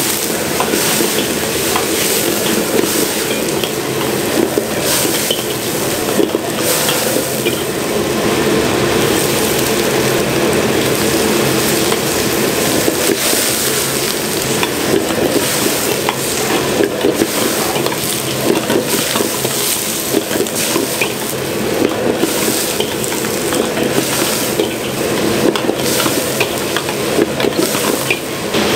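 Stir-frying in a wok: food sizzling steadily while the ladle scrapes and clatters against the pan, over a continuous rush of noise.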